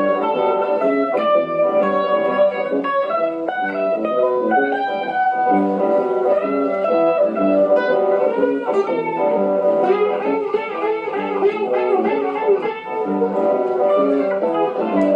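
Electric guitar (an Ibanez RG 750 through a Vox AC4TV amp) played through a Behringer 69 Vibe Univibe-style pedal, jamming an acid-blues line of quickly changing notes.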